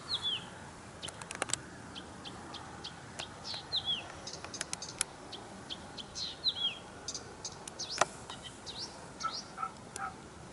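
Small songbirds chirping: quick high chirps, with a downward-slurred call repeating every few seconds. A few sharp clicks sound about a second and a half in, and one louder click about eight seconds in.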